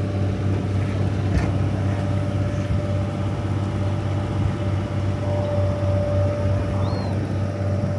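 River cruise boat's engine running steadily underway, a low drone with a steady higher whine over it. A single sharp click about a second and a half in.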